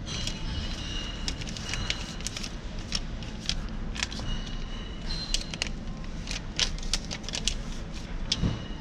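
Paper bottle-return receipt slips crinkling and rustling as they are handled and shuffled, with many sharp irregular crackles.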